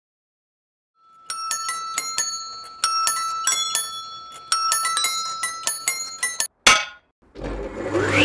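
A short jingle of ringing, bell-like metallic strikes in irregular clusters, then a brief noisy burst. Near the end a table saw starts up, its motor whine rising steeply in pitch as the blade spins up.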